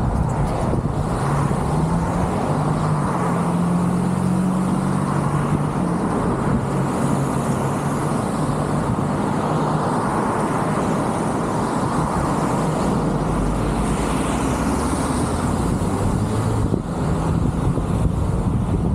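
Steady city street traffic noise heard from the roof of a car: a continuous rush of car engines and tyres, with a low engine hum through the first few seconds.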